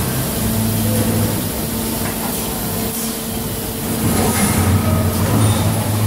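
Plastic soup spoon injection moulding and automatic packing machinery running: a steady low machine hum with a few light clicks from the moving mechanism.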